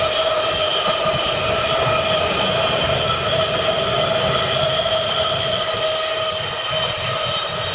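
A train running past, its wheels giving a steady, high-pitched squeal over the rumble of the rolling stock. The sound eases off slightly near the end.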